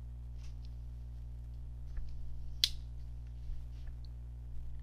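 SOG Trident TF-5 folding knife's blade and lock mechanism clicking: one sharp click about two and a half seconds in, with a few fainter clicks around it. A steady low hum runs underneath.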